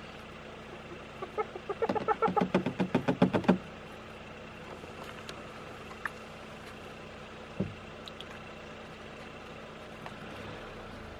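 Spotted hyena giggling: a quick run of about a dozen pitched, yelping calls lasting under two seconds, about two seconds in. A couple of faint knocks follow later, over a steady low hum.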